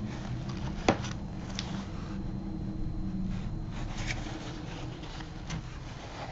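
A few light clicks and taps with soft rubbing as a watercolor brush is worked on paper, over a low steady room hum; the sharpest click comes about a second in.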